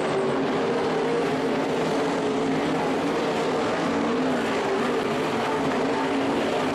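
A field of sportsman sprint cars running at racing speed on a dirt oval. Their engines blend into one steady noise whose pitch wavers slightly.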